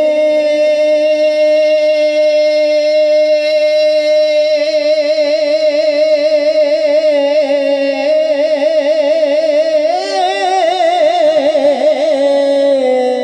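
A man singing Punjabi Sufi verse into a microphone, holding one long note for about ten seconds before breaking into a wavering, ornamented run near the end.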